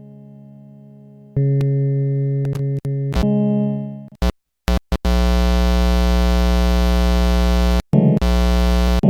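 Electronic music: a held synthesizer chord fades, then loud droning synth tones cut in, broken by abrupt glitchy stops and silences.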